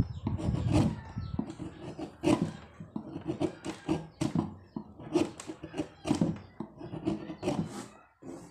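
Irregular scraping and rubbing strokes from hand work with a wood chisel, coming one to three a second with uneven spacing.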